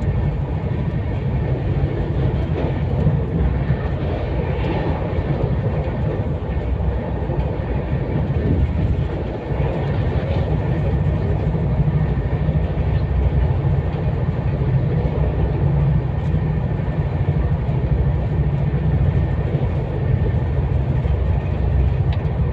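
Steady running noise of a passenger train at high speed, heard from inside the coach: a continuous low rumble of wheels on rails.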